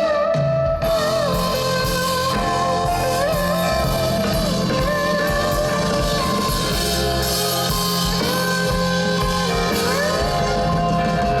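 A live band playing an instrumental passage: guitars with a sliding lead melody over bass and drums.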